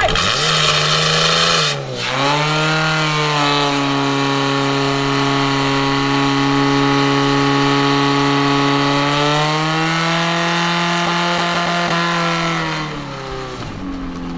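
Portable fire-pump engine running hard, driving water through the attack hoses. A harsh hiss covers the first second and a half. The engine's pitch dips briefly about two seconds in, holds steady, then falls near the end.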